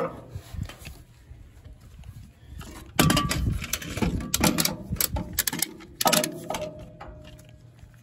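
Metal knocks and clatter on a wood chipper's steel housing while the drum lock pin is handled, loudest in a cluster about three seconds in. A knock about six seconds in leaves a short ringing tone. Rubbing and handling noise sits close to the microphone.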